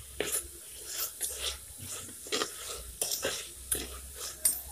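Metal spoon scraping and knocking against a pot while stirring sautéing onions: a string of short, irregular scrapes and clicks.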